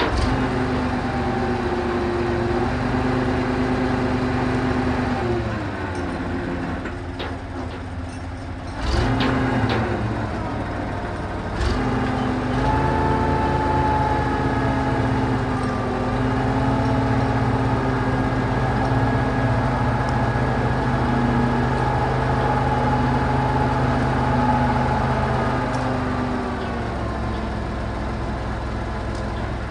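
Truck crane's engine running steadily under load, its pitch stepping up and down as the crane works, with a few sharp knocks about nine and twelve seconds in.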